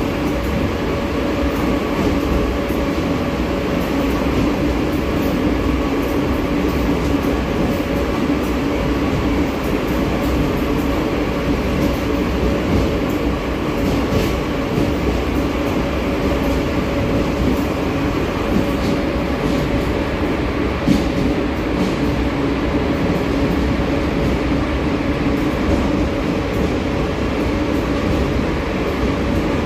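Buenos Aires Subte Line E subway train running steadily, heard on board: an even rumble with a constant hum and a few faint clicks.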